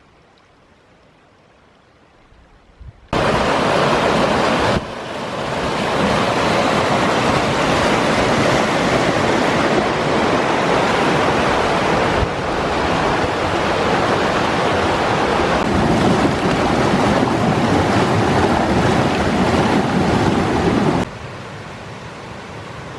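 Whitewater rapid rushing loud and steady, coming in abruptly about three seconds in after a faint start, with sudden level jumps at cuts, and falling to a quieter rush near the end.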